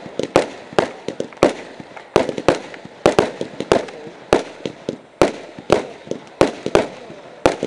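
Loki A fireworks battery firing shot after shot, tails rising to brocade crowns with strobe, making sharp bangs about two to three a second, each with a short echo.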